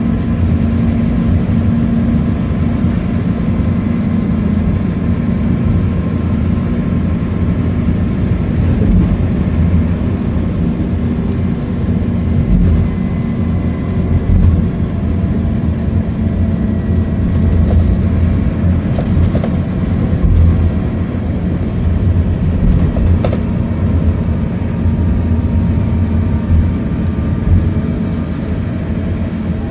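Scania K230UB single-deck bus with its diesel engine and ZF automatic gearbox, heard from inside the passenger cabin while cruising: a steady engine drone with road and tyre noise. A few short clicks or rattles come about two-thirds of the way through.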